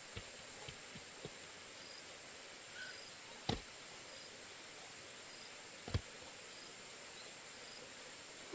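A few light knocks, then two hard, sharp strikes about two and a half seconds apart. A steady high insect drone runs underneath, with short high chirps.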